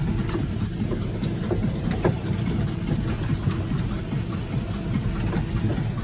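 John Deere 6215R tractor's six-cylinder diesel engine running steadily under ploughing load, heard from inside the cab. A few light rattles and clicks sound over it, the sharpest about two seconds in.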